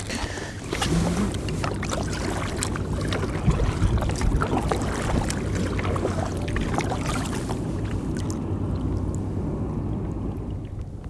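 Wind on the microphone and water around a kayak, with many small scattered knocks and rattles of handling on the kayak; the knocks thin out and it grows quieter about eight seconds in.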